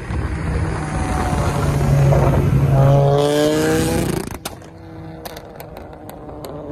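2007 Volkswagen Jetta 2.5's inline five-cylinder, with a catless straight-pipe exhaust, accelerating hard at full throttle, its pitch climbing. About four seconds in, the sound drops abruptly and a string of sharp pops and crackles from the exhaust follows over a quieter engine note.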